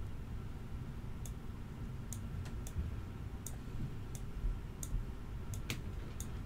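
Light, scattered clicks of a computer mouse, about ten at irregular intervals, over a faint background hum.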